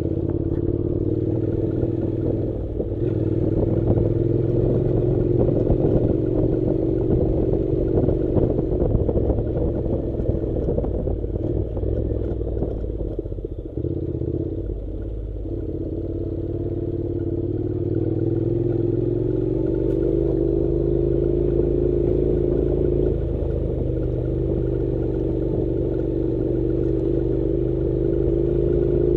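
Honda NC700's 670 cc parallel-twin engine running at low, steady revs as the motorcycle rides a rough dirt track, with frequent knocks and rattles over the bumps. About halfway the engine note drops, then climbs slowly back.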